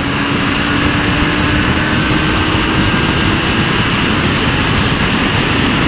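Sport motorcycle ridden at highway speed: a steady rush of wind on the microphone over the engine's drone, with a faint steady engine tone that fades about halfway through.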